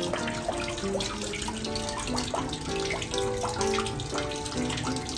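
Tap water pouring into a plastic tub while a baby monkey splashes and paddles in it, under background music of short melodic notes.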